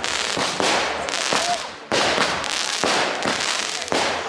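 Consumer aerial fireworks going off overhead: a series of sharp bangs, about one every second, each followed by a hissing crackle.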